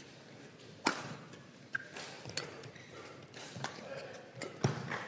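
Badminton rackets striking the shuttlecock in a singles rally: a string of sharp hits roughly a second apart, with footfalls on the court.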